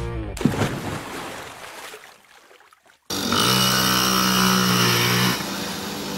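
Pool water splashing as people fall off a floating board, dying away over the next two seconds. About three seconds in, a small children's motorbike engine comes in abruptly, running at a steady pitch and easing off a little near the end.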